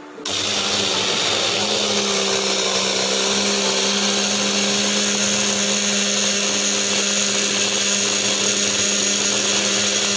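Personal bullet-style blender switching on abruptly and running steadily as it blends curd, banana, peanut butter and chia seeds, a constant motor hum and whine whose pitch rises slightly about a second and a half in.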